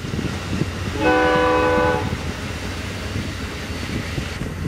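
A train horn sounds one blast of about a second, several tones together, about a second in, over the steady rumble of Amtrak Superliner passenger cars rolling past.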